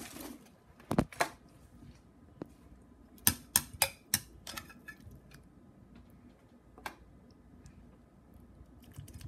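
Sharp clicks and taps of a metal fork and knife against a glass bowl and a foil-lined metal baking pan as sauce-coated chicken pieces are moved between them. A quick run of several taps comes about three to four seconds in, with single clicks here and there around it.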